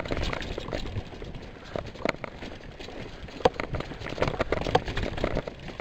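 Full-suspension mountain bike rolling over a dirt singletrack trail: a steady rumble of tyres on dirt with irregular clicks and rattles from the bike.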